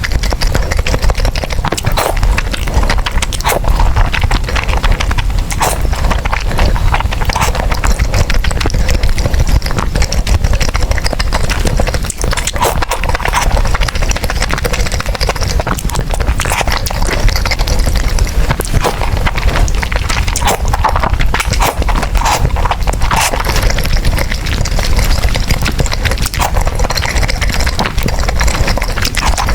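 Close-miked eating of noodles, chewing with a steady run of wet mouth clicks and smacks.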